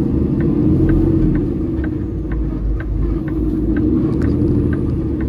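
Peterbilt 389 semi-truck's diesel engine rumbling steadily, heard inside the cab, with a regular light ticking about twice a second.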